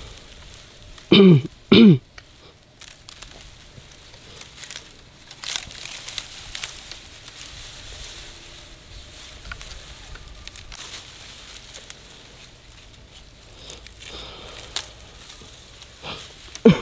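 Grass being cut and gathered by hand: scattered crunching, tearing and rustling of stems. About a second in, two short, loud vocal sounds falling in pitch stand out above it.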